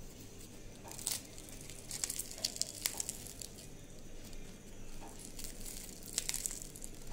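Crisp fried batter crust of a stuffed chilli fritter (mirchi vada) crackling as fingertips press and break it: faint scattered crackles, a few sharper ones about a second in, at two to three seconds, and around six seconds.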